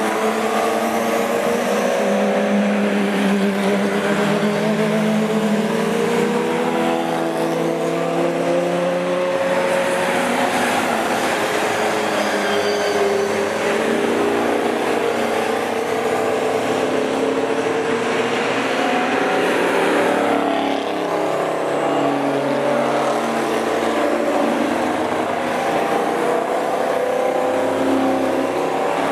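A steady procession of GT race cars, Porsche 911s among them, driving through a corner on the formation lap. Several engine notes overlap, each rising and falling as the cars accelerate and pass, with no break in the sound.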